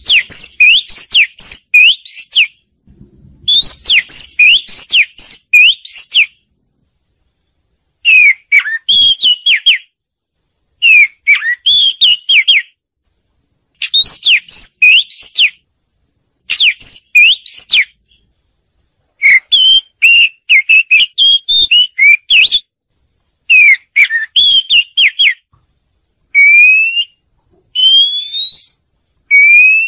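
Oriental magpie-robin song: bursts of rapid, varied whistled notes, each phrase about two seconds long with clean gaps of silence between, ending in a few single upward-sliding whistles. This is a recorded song played as a lure to set other birds singing.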